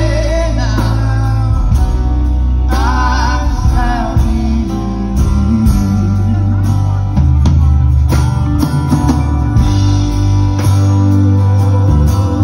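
Live band playing a slow song on acoustic and electric guitars, upright bass and drum kit, with a voice singing a line over the first few seconds before the instruments carry on.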